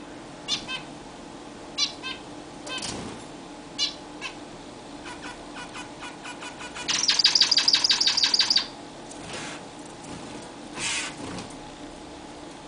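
Zebra finches calling: short nasal calls spaced a second or two apart, with a loud, rapid run of about a dozen quick notes a second lasting about a second and a half partway through. A few brief soft rustles come in between.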